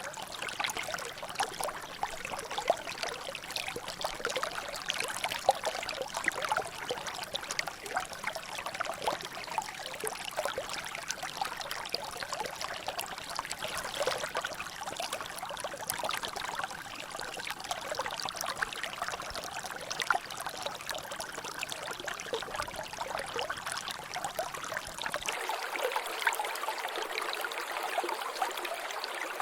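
Water trickling and dripping in a natural drainage channel: a steady run of water with many small drops splashing. The deeper part of the sound falls away about four seconds before the end.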